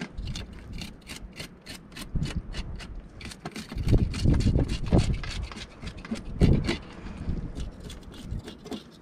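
Knife scraping the scales off a fish in quick repeated rasping strokes, about four a second, with a few louder dull thumps in between.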